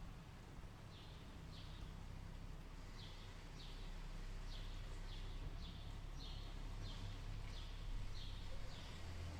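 A bird calling a short, downward-sliding note over and over, about two a second, over a steady low rumble and background hiss.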